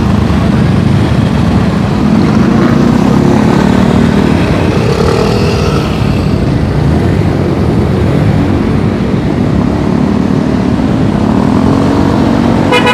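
Motorcycle and car engines in slow road traffic just ahead, under a steady low rumble of wind on a microphone moving with the bicycle. An engine note rises near the end.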